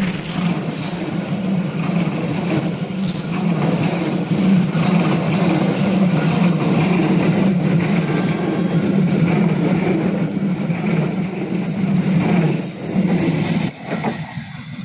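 Train running past close by: a loud, steady rumble of wheels on the rails and railcars, which falls away quickly about 14 seconds in.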